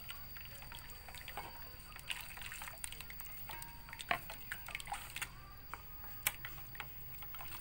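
Plastic spatula stirring a wet mash of fish bait and hot water in a stainless steel bowl: liquid sloshing with irregular small scrapes and clicks, and two sharper clicks about four and six seconds in. The stirring melts margarine into the mix.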